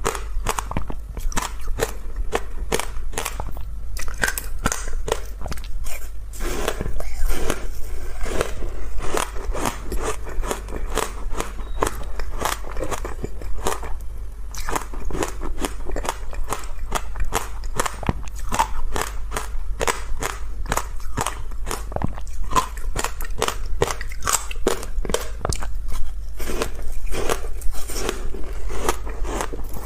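Close-miked biting and chewing of crunchy frozen passion-fruit ice, a dense run of cracking crunches.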